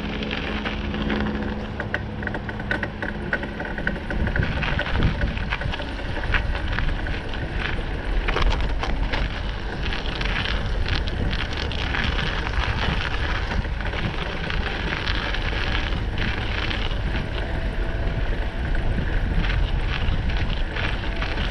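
Tyres rolling over a thin layer of snow on a paved path: a steady crunching hiss with many small crackles and rattles, and wind rumbling on the microphone. A low hum fades out about four seconds in.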